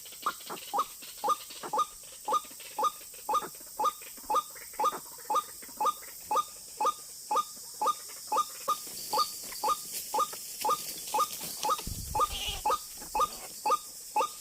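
White-breasted waterhen (ruak-ruak) calling: a steady, monotonous run of short upward-sliding notes, about two a second. A brief low rumble comes in about twelve seconds in.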